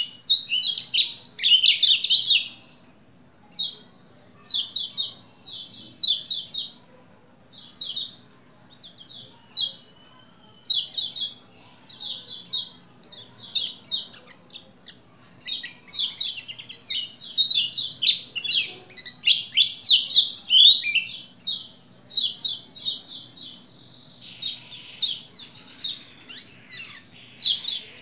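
Pleci Lombok white-eye in full song: fast runs of short, high chirping notes, several a second, in phrases broken by short pauses, with a buzzier run near the end.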